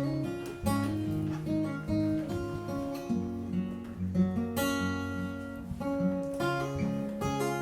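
Acoustic guitar strummed in a song's instrumental intro, chords struck about once a second.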